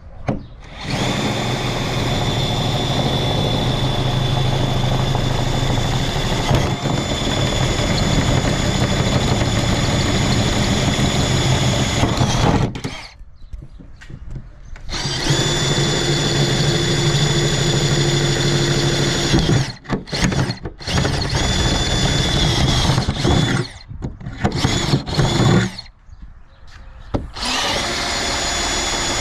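Power drill running a larger bit to widen pilot holes in a car's trunk lid for a rear spoiler's mounting bolts. A steady whine runs for about twelve seconds, stops briefly, runs again for about four seconds, then comes in several short bursts, with one more run near the end.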